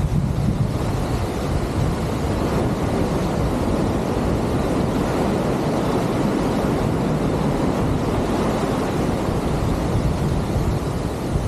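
Wind buffeting the microphone over the steady rush of white water churning along the hull of a ship under way at sea.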